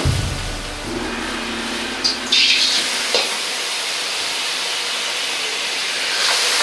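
Stir-fry sizzling in a hot carbon-steel wok over a strong gas burner: a steady hiss, with a louder burst of sizzling about two seconds in as Shaoxing rice wine and soy sauce hit the hot metal, and a light ladle tap about a second later.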